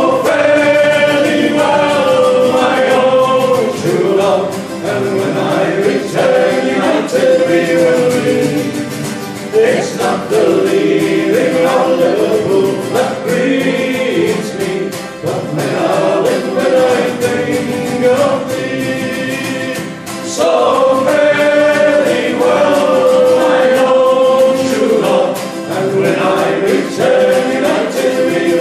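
Male vocal group singing a sea song in harmony, with acoustic guitars strummed along.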